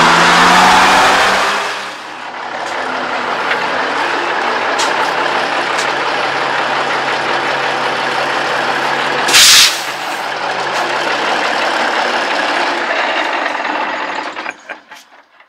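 Tail end of music for the first couple of seconds, then a 1979 International Transtar II cabover's Cummins 290 inline-six diesel idling steadily. A short, loud burst of air hiss from the truck's air system comes about halfway through, and the engine fades out near the end.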